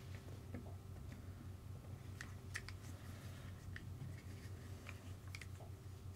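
Faint scattered clicks and light taps of small plastic and metal RC car kit parts being handled, with a few sharper ticks around the middle, over a steady low hum.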